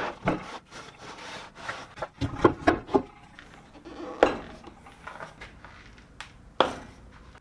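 Wood being handled on a plywood table-saw sled: a run of irregular knocks and clicks with some scraping of wood against wood, and several sharper knocks spread through.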